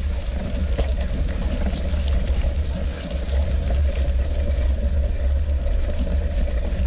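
Mountain bike rolling slowly over a muddy, rutted trail: a steady low rumble from the bike-mounted camera shaking over the rough ground, with scattered clicks and rattles.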